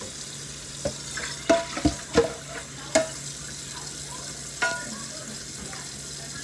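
Kitchen tap running steadily into a stainless steel sink. Several sharp clinks and knocks of hard items being handled at the sink come over it, mostly in the first five seconds.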